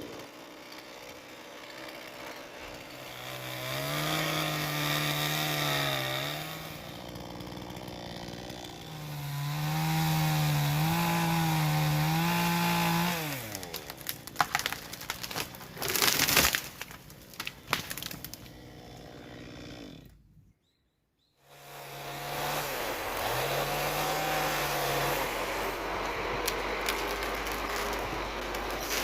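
Husqvarna chainsaw cutting into wood, its engine pitch sagging and recovering under load in several long cuts. In the middle there is a stretch of sharp knocks and cracks.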